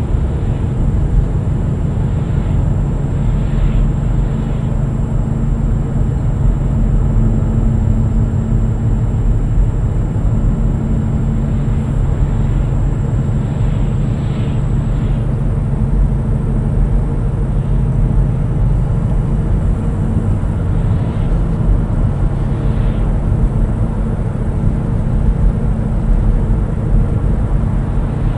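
Road and engine noise inside a moving car's cabin: a steady low rumble of tyres and engine, with a few faint swishes of traffic going by.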